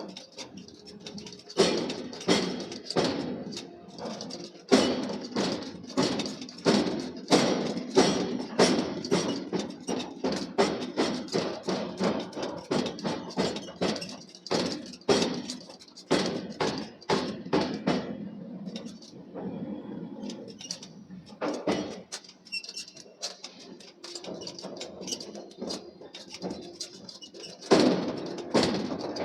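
Repeated hammer blows on steel being forged, coming unevenly at about one to two a second. They thin out about two-thirds of the way through, then pick up again near the end.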